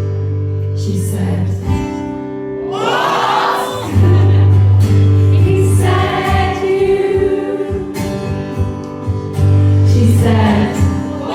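Live band music: held low bass notes under long, wordless sung tones.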